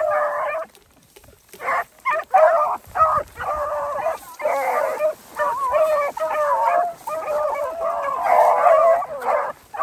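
A pack of beagles baying in thick brush cover while running a rabbit track, several hounds giving voice at once in overlapping bursts, with a short lull about a second in.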